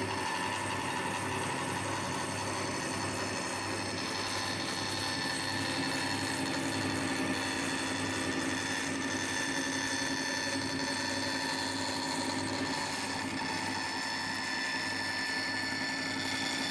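Bandsaw running steadily as a thin plywood board is fed along the fence into the blade in a test cut, which shows whether the blade drifts off the pencil line.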